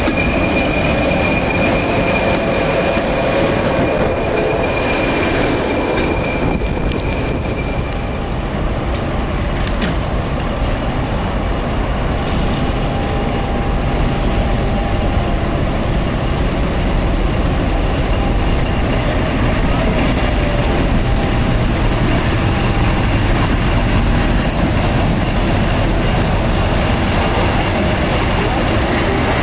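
Passenger coaches rolling past close by with a steady high wheel squeal. Then a British Rail Class 50 diesel locomotive draws into the platform, its English Electric 16-cylinder engine running with a low, steady rumble.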